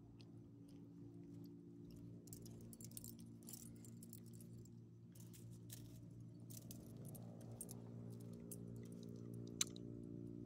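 Faint light jingling and clicking of a small dog's metal leash clasp and collar hardware as the dog sniffs the ground, over a steady low hum, with one sharper click near the end.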